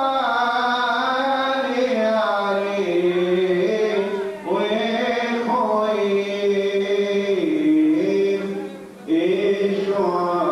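A man chanting a slow, ornamented liturgical melody solo through a microphone, holding long wavering notes, with short pauses for breath about four and nine seconds in.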